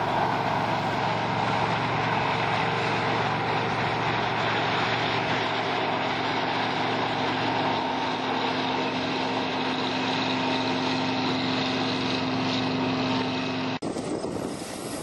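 Corn tassel-pulling machine running steadily as it moves through the field, with a steady hum setting in about a third of the way through. Near the end the sound changes abruptly, as at a cut to another recording.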